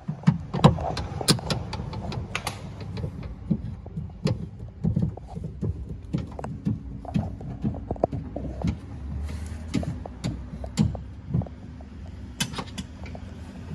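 Irregular clicks and knocks of a Torx driver and hands working against the sheet-metal door from inside, undoing the screw of the door handle's locating pin, over a steady low hum.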